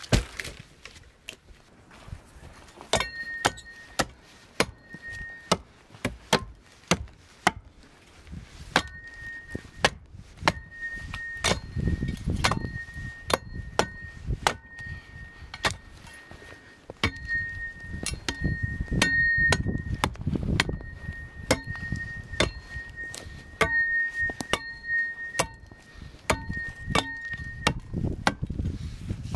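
Hatchet chopping into a fallen conifer log: sharp, separate strikes at an uneven pace of about one or two a second.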